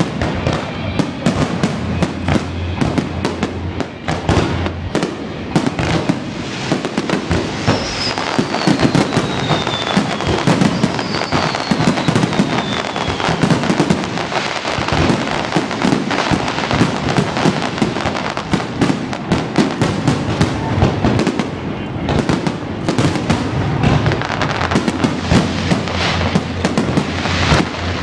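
Fireworks display: a dense, continuous run of bangs and crackling bursts, with two falling whistles about eight and eleven seconds in.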